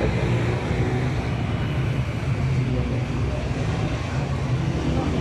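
Honda CG125's single-cylinder four-stroke engine running steadily.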